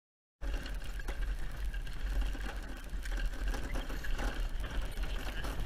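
Silence, then about half a second in, a pony team's driving carriage on the move: a continuous low rumble with scattered rattles and clicks from the carriage and harness.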